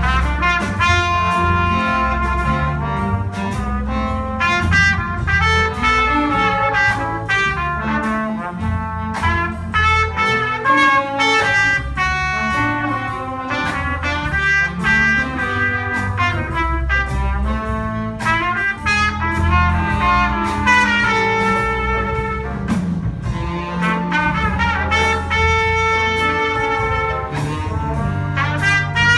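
Live ensemble music in a jazzy style with prominent brass, trumpets and trombones, playing continuously.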